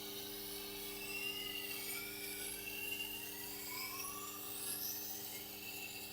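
Tormek sharpening machine running while a chef's knife edge is ground on its diamond wheel: a steady motor hum under a hissing scrape whose pitch slides up and down as the blade moves along the wheel.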